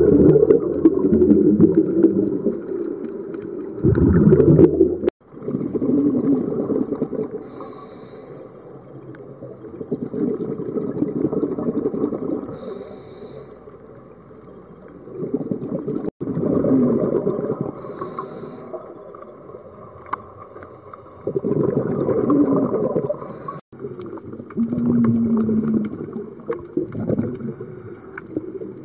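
Muffled underwater sound of water surging and sloshing against a camera housing, swelling and fading every few seconds, with short hissy bursts now and then. The sound breaks off abruptly three times where clips are cut together.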